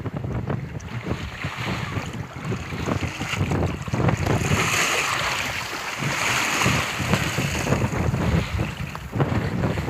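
Wind buffeting the microphone over the wash of open-sea water against a small fishing boat's hull, with two louder rushes of water around the middle.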